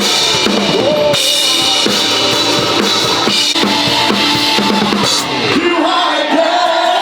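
Live band playing contemporary worship music, with a full drum kit (bass drum and snare) driving a steady beat under a sliding melody.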